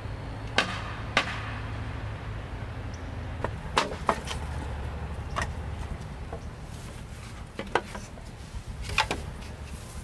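Sharp strikes on bamboo: about seven irregularly spaced knocks, as a tool chops or hits bamboo, over a steady low hum.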